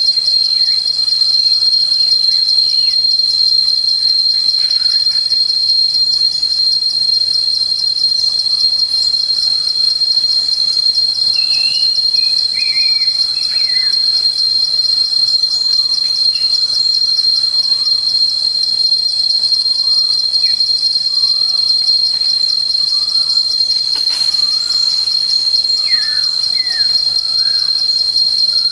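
A loud, steady, high-pitched insect trill with a fine rapid pulse that runs without a break. Faint short bird chirps and calls come and go beneath it.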